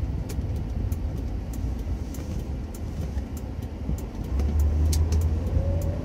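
Cabin noise of a 1983 Mercedes-Benz 380 SL under way: a steady low rumble from its 3.8-litre V8 and the road, swelling about four seconds in as a faint tone slowly rises in pitch, with scattered light clicks.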